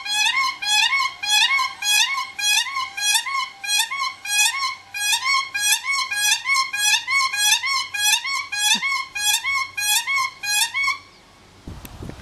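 A pair of Siberian cranes unison calling: a long run of high, rising, whistle-like notes repeated about two to three times a second, stopping about a second before the end. A low rustling noise follows.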